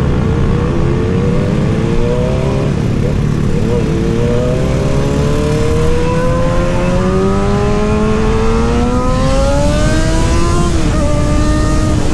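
Kawasaki ZX-6R's inline-four engine accelerating, its pitch climbing steadily for several seconds, then dropping sharply about eleven seconds in and holding steady.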